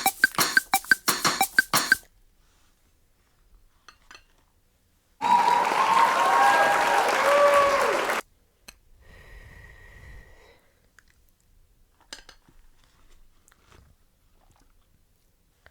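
Close-miked crunchy chewing, rapid crisp crunches for about two seconds. After a pause comes a loud rushing, hissing noise lasting about three seconds with a wavering whistle-like tone in it, then only faint small sounds.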